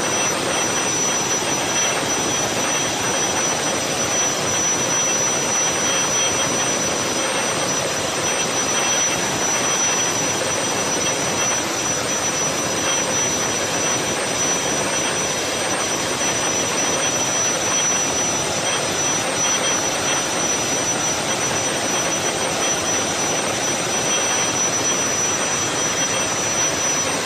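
Steady rushing hiss with a thin, high, unwavering whine running through it.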